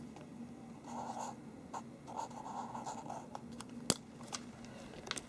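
Felt-tip marker scratching on paper as a short figure is written, in two brief strokes, about a second in and again a little after two seconds. A single sharp click comes a little before four seconds in.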